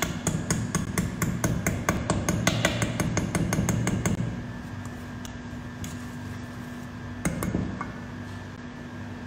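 Wire balloon whisk beating cake batter in a stainless steel bowl, its wires clinking rapidly against the metal, several strokes a second, as flour is mixed into the batter. The whisking stops about four seconds in, with a few soft knocks near the end.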